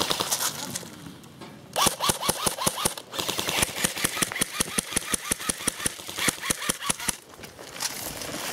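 Airsoft AK-pattern rifle firing in long bursts. It is a rapid, even string of shots that starts about two seconds in and runs for about five seconds, with a brief break about a second after it starts.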